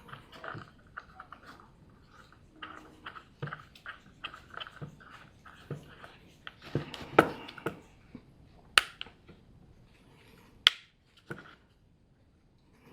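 Small clicks, taps and rustling from a cordless electric chainsaw's plastic parts being handled and fitted together. Three sharper snaps stand out about seven, nine and eleven seconds in.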